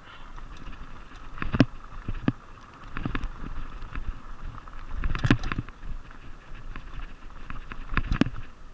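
Fuji Beartooth 27.5+ mountain bike descending a dirt trail at speed: a steady rush of tyre and wind noise, broken by sharp clunks and rattles as the bike hits bumps. The loudest knocks come about a second and a half in, around five seconds in, and near the end.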